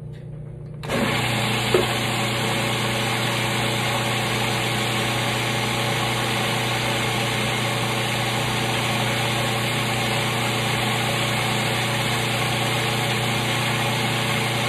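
Old Cuisinart food processor switched on just under a second in and running steadily with a motor hum as its blade chops a wet sofrito mix of garlic and olives.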